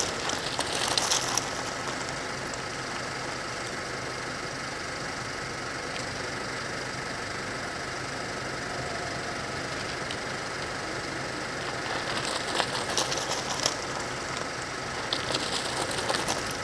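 Mountain bikes passing close by on an asphalt road: bursts of clicking and tyre noise right at the start and again from about twelve seconds in, over steady background noise.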